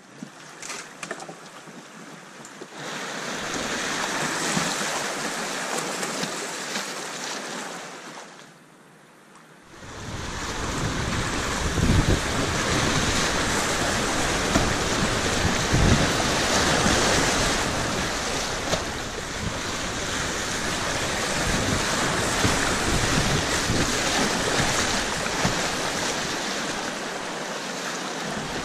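Whitewater rapids rushing and splashing around a kayak as it is paddled through, with wind buffeting the microphone and low thumps of water striking the boat and camera. The noise drops away briefly about nine seconds in, then comes back loud.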